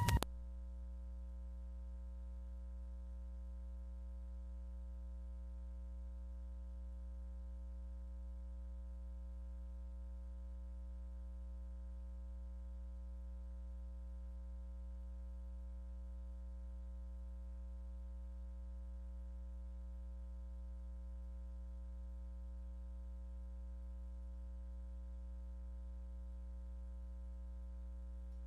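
Steady low electrical hum with several fixed higher tones over it, unchanging in pitch and level, starting and stopping abruptly.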